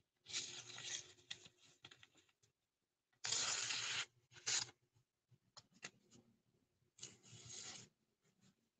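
A freshly sharpened balisong (butterfly knife) blade slicing through a sheet of paper in several separate strokes, each a short papery rasp. The longest and loudest cut comes a little over three seconds in.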